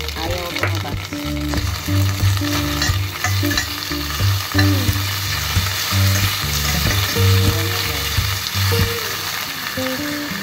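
Beef strips, sliced onion and garlic sizzling in hot oil in a stainless steel pan, with the scrape and clink of a metal slotted spatula stirring them. Background music plays underneath.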